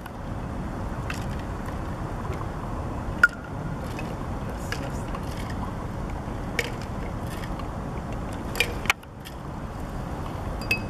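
A metal cocktail shaker being poured into glass tumblers, with a few light clinks of metal against glass, the sharpest about three seconds in, over a steady low background rumble.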